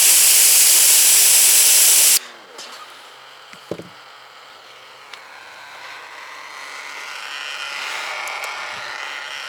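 Ryobi 36V cordless pressure washer spraying through a 2.5 mm orifice nozzle at about 850 psi, a loud steady hiss that cuts off suddenly about two seconds in as the trigger is released. A softer hiss then slowly swells toward the end.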